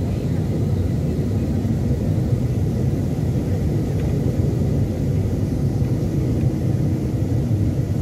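Steady low rumble inside the cabin of a Boeing 737-800 in flight, heard from a window seat over the wing: the CFM56 engines and the airflow along the fuselage during the descent.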